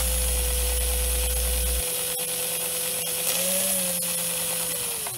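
Electric motor and gearing of an American Flyer 3/16-scale steam locomotive chassis running its drive wheels free, a steady whine over a whirring hiss. The pitch lifts slightly a little past three seconds, then winds down as power is cut near the end.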